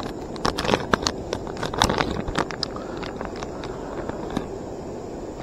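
Clear plastic soft-bait bag crinkling as hands tear it open and handle it: irregular sharp crackles, thicker in the first half and sparser after.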